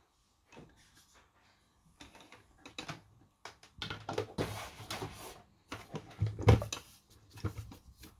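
Parts of an electric ice-cream maker being handled: the plastic lid and the freezer bowl knock and clatter against the plastic base. It comes as a run of short clicks and knocks, with the loudest thump about six and a half seconds in.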